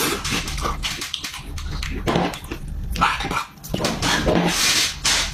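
Close-miked eating sounds: wet chewing, lip-smacking and slurping in irregular bursts, with a few short pitched grunt-like sounds.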